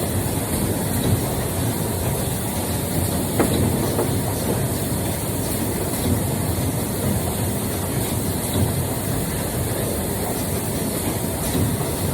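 Steady low rumbling noise with a few faint clicks scattered through it.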